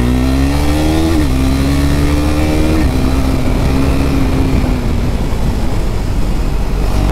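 KTM RC 390's single-cylinder engine accelerating hard through the gears. The note rises, drops at an upshift about a second in, climbs again, and drops at a second upshift near three seconds. It then holds steady until the rush of wind on the microphone at speed takes over in the last couple of seconds.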